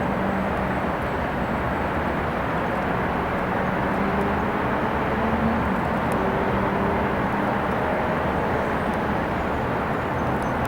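Steady outdoor engine drone: an even rumble with a faint hum that drifts slightly in pitch.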